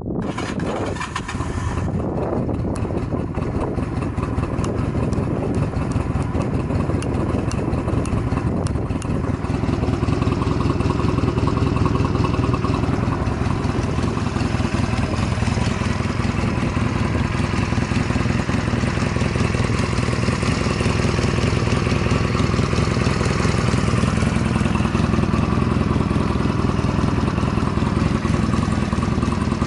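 Honda Rebel 250 (MC13) air-cooled parallel-twin engine starting and then idling steadily, getting a little louder about ten seconds in. The fully stock engine runs with no abnormal noises.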